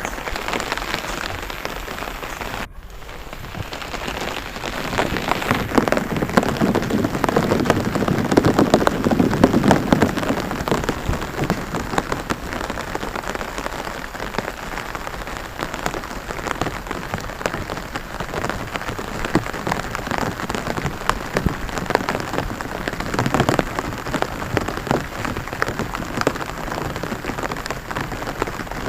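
Rain pattering on a rice paddy: a dense, steady patter of drops, heavier for several seconds near the start.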